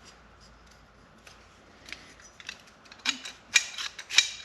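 Metal parts and tools clinking and rattling as they are handled: a few faint ticks, then a cluster of sharper metallic clinks in the last second and a half.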